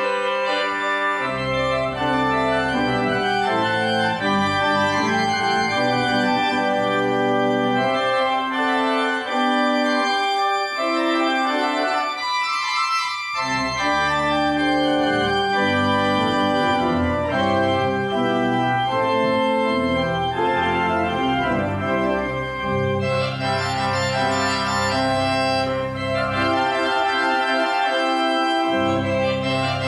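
Church organ playing a piece in sustained chords, the melody moving over held notes. The deep bass notes drop out twice, for several seconds about a third of the way in and briefly near the end, leaving only the manual voices.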